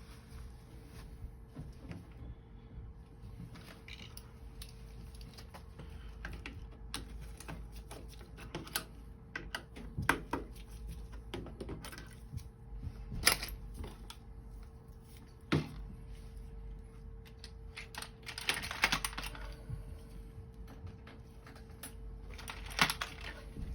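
Scattered small metallic clicks and clinks of hand tools and oil-burner parts being handled, with two short scraping stretches, over a faint steady hum.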